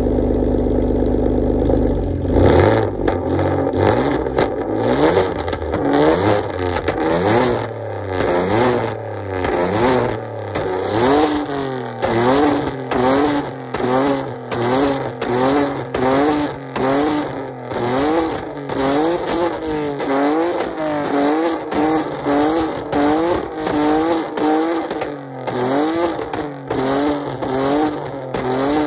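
Straight-piped, catless 2015 Ford Taurus Limited exhaust with no mufflers, idling steadily and then, from about two seconds in, revved in quick blips about once a second. Crackling pops come between the revs, from its pops-and-bangs tune.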